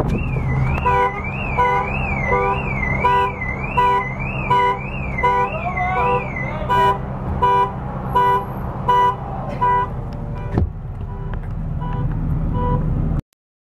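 Car alarm going off: a siren tone warbling up and down about twice a second, over a steady run of short beeps. The warble stops about halfway through while the beeping carries on, and then the sound cuts off suddenly near the end.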